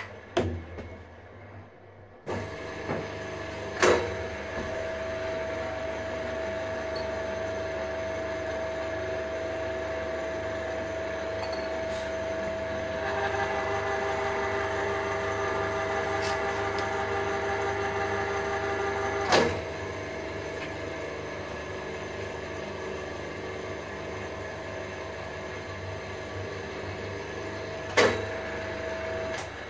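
Milling machine spindle motor switching on about two seconds in and running steadily with a hum of several held tones until near the end. From about 13 s to 19 s extra higher tones join the running sound. Sharp clicks are heard at about 4 s, 19 s and 28 s.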